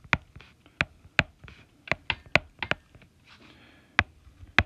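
Stylus tip clicking on a tablet's glass screen during handwriting: about a dozen sharp clicks at uneven intervals, with faint scratchy strokes between them and a pause of about a second near the end.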